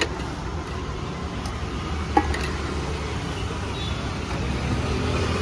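Steady low rumble of road traffic, with a single sharp metal clink about two seconds in.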